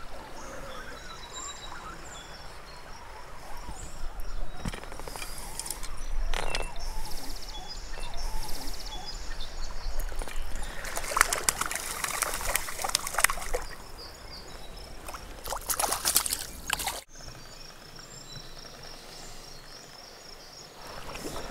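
Stream water splashing and sloshing as a hooked brown trout thrashes and is brought to hand, in several bursts about six, eleven and sixteen seconds in; after a sudden break near the end the water sounds turn quieter and steady.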